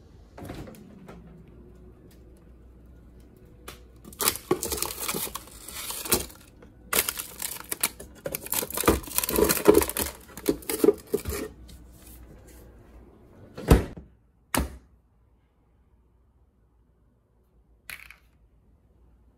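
Hands rummaging through a freezer among frozen ice cream tubs and wrapped ice cream bars: a stretch of plastic wrappers crinkling and containers knocking together, then two sharp knocks. Near the end, a short scrape as the lid comes off a paper ice cream tub.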